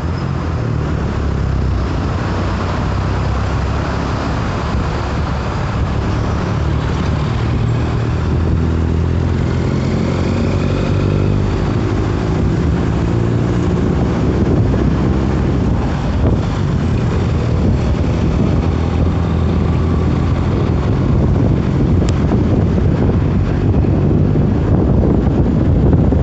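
Exhaust of a Mercedes-Benz OF-1721 Euro 5 bus's six-cylinder diesel engine running loud and steady, its note rising and falling in steps as engine speed changes, getting slightly louder toward the end.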